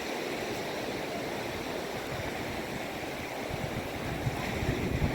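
Surf washing on a beach with wind buffeting the microphone: a steady rushing noise under a fluttering low rumble that grows a little stronger near the end.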